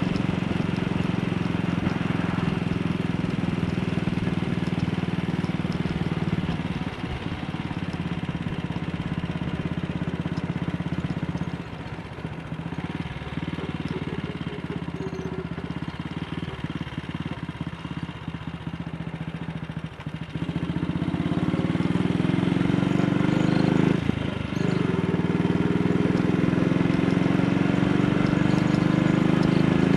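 AJS Model 8 single-cylinder four-stroke motorcycle engine running on the road. It eases off about a third of the way in and stays quieter for several seconds. About two-thirds in it picks up again, pitch rising under acceleration, with a brief dip at what sounds like a gear change shortly after.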